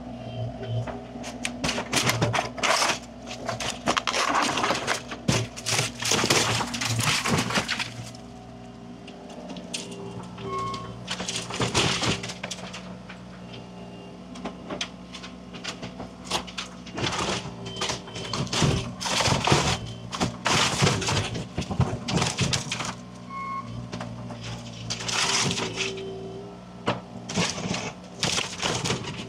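A machine's engine running steadily under repeated, irregular cracking and crashing as material is broken apart and crushed.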